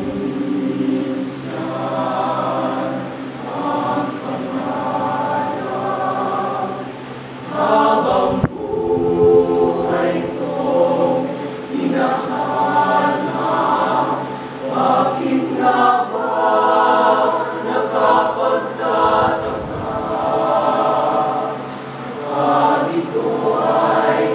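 A mixed youth choir of girls and boys singing a song together, several voices holding sustained notes at once.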